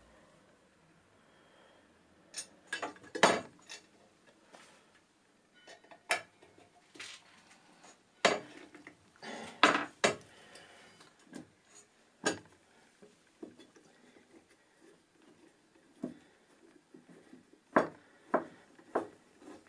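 Scattered metallic clicks, clinks and knocks of small hardware (screws and nuts) handled against a metal carriage plate and aluminium-extrusion frame while parts are fitted by hand. The loudest knocks come about three seconds in, around the middle and near the end.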